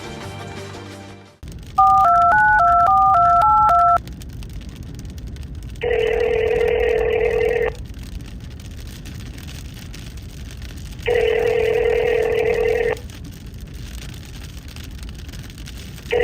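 Background music cuts off about a second in. Then a telephone number is dialed in a quick run of touch-tone beeps, followed by the ringback tone of the call ringing at the far end: two rings of about two seconds each, some five seconds apart, over a low hiss.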